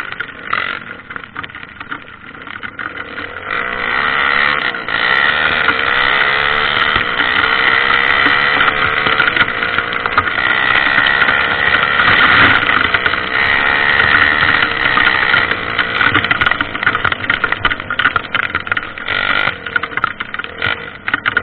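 Trail motorcycle engine running under way, its pitch wavering up and down with the throttle. It builds up about three seconds in and eases off near the end.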